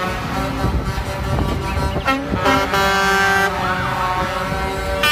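Concrete mixer trucks' air horns honking in long, overlapping blasts at several pitches, over the rumble of the trucks' engines.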